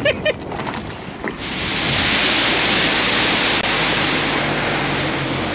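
A loud, steady rush of wind and water hiss from a small boat running at speed, setting in about a second and a half in, with a faint low hum underneath.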